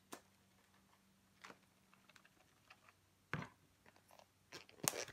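Plastic food storage container being handled: a few scattered clicks and knocks, the loudest a little past three seconds in, then sharp clicks near the end as its snap-on lid is pressed closed.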